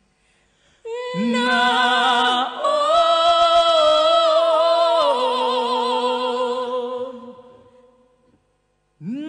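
A woman and a man singing a duet live, holding long notes together with vibrato and no beat behind them. The voices come in after a brief silence, fade out about seven seconds in, and a new sung note begins near the end.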